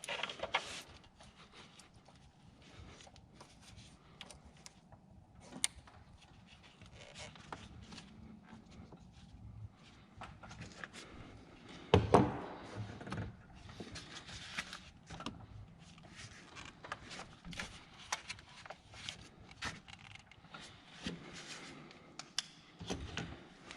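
Scattered clicks, rattles and light knocks of objects being handled, with a louder knock about 12 seconds in.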